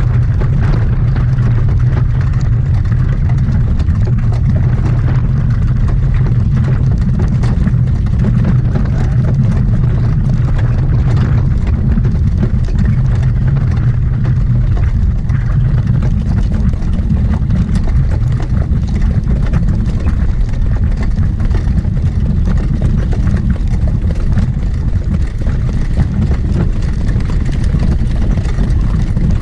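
Steady, loud low rumble of wind buffeting the microphone, with faint irregular ticks over it.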